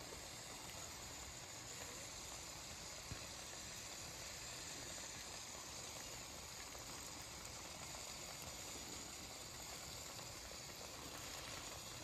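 Faint, steady sizzling of thick spaghetti sauce that is drying up and sticking to the bottom of a skillet as the pasta is stirred, with one light click about three seconds in.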